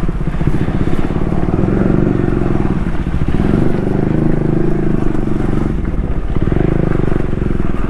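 Motorcycle engine running steadily while riding, its pitch dipping briefly about three seconds in and again about six seconds in.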